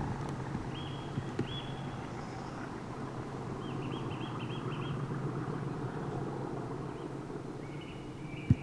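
Small birds chirping in short repeated groups of calls over a steady low engine rumble. A sharp knock comes near the end.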